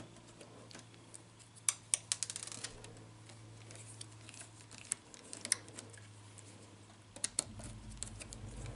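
Sparse light clicks and taps as the mounting screws are taken out of a laptop LCD panel's side brackets, with a quick run of clicks about two seconds in. A faint low hum underneath.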